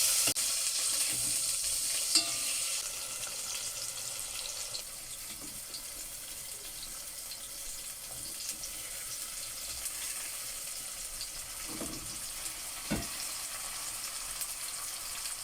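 Food sizzling in a frying pan, a steady hiss that eases off after about five seconds. There is a click about two seconds in and two short knocks near the end.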